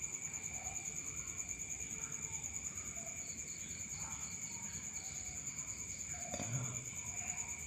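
Crickets trilling steadily, two continuous high-pitched trills at different pitches running together.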